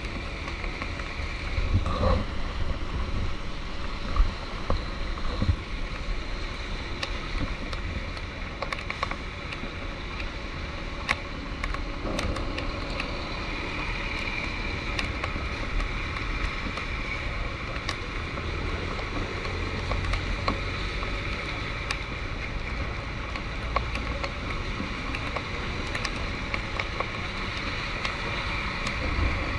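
Vehicle driving in rain: a steady engine and road rumble with a wet hiss, and scattered sharp ticks.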